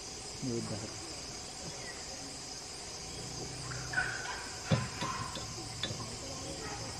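Steady high drone of forest insects. A brief low voice-like sound comes about half a second in, and a few sharp knocks and clicks come between about four and six seconds in, the loudest near five seconds.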